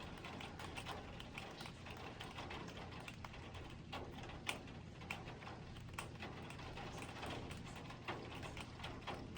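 Sleet falling: a faint, steady patter of small ice pellets ticking irregularly, with the same sound as rain.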